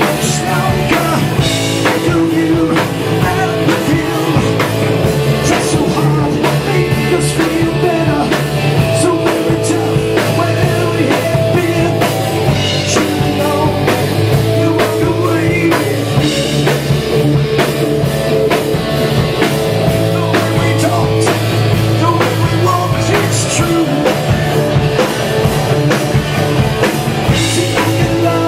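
Hard rock band playing: electric guitar, drum kit and a man singing lead.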